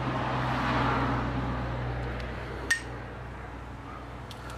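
A single sharp metallic clink with a short ring about two and a half seconds in, from the basting utensil knocking against metal while saucing pork on the grill. Under it a steady low hum that stops near the end, and a broad noise that swells and fades over the first two seconds.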